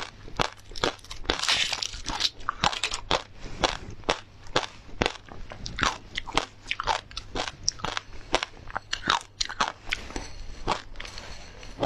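Close-miked crunching bites and chewing of a hard frozen ice treat, a rapid run of sharp crunches two or three a second. Foil crinkles briefly about a second in.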